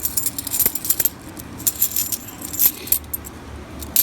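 Half dollar coins clinking against one another as a roll is sorted through by hand: quick runs of sharp metallic clinks in several clusters, the loudest near the end.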